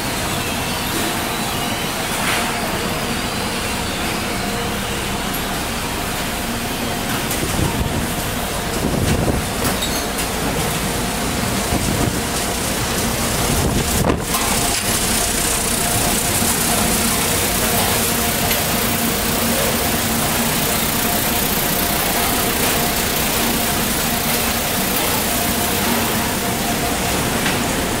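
Steady machine din of a garbage sorting line: conveyor belts and their motors running, with a few steady hum tones under a loud, even rush of noise.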